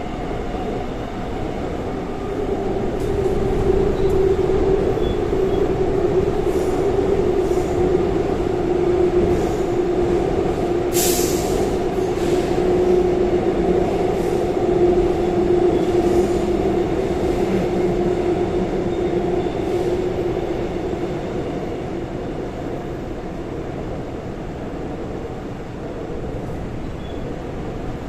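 Seoul Line 4 4000-series electric train with Alstom GTO-VVVF traction equipment running between stations: wheel and track noise under a steady traction-motor hum. A short sharp high-pitched noise comes about 11 seconds in, and the hum stops about three-quarters of the way through as the train runs on more quietly.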